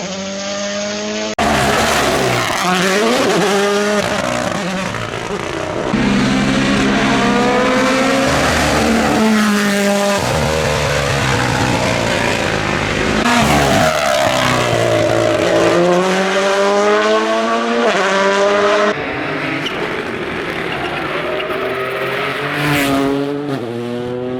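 Rally cars driven hard at speed, engines revving up and dropping in pitch through rapid gear changes as they pass, in several short clips cut one after another.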